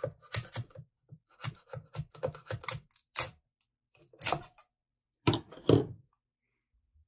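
Metal spatula clicking and scraping against a 3D printer's build plate as a finished print is pried loose and lifted off the bed: an irregular clatter of short clicks and knocks that stops about six seconds in.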